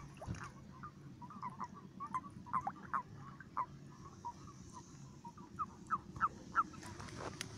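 A chorus of common toads calling at their spawning pond: many short, overlapping croaks, several a second. A few sharp clicks near the end.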